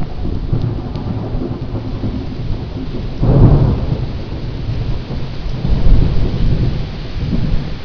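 Heavy thunderstorm: steady rain with a low rumble that swells loudest about three seconds in and again around six seconds.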